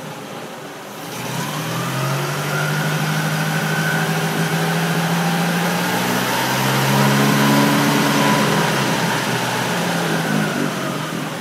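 Fiat 501's four-cylinder engine running, brought up to a fast idle about a second in, rising a little further past the middle and easing back near the end. The raised revs are enough for the dynamo to show a charge.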